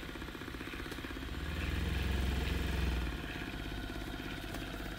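Vortex Stirrer Turbo paint mixer running, shaking a large jar of paint in its holder with a fast, even buzzing rattle. About a second and a half in it grows louder and deeper for a second or so, then settles back.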